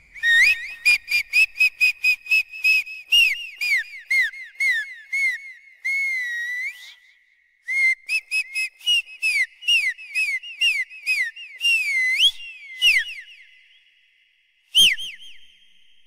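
Whistling: a quick run of short chirping whistle notes at about the same high pitch, many sliding down, with one longer wavering note and a brief gap midway. The notes stop well before the end, then one short burst of notes follows.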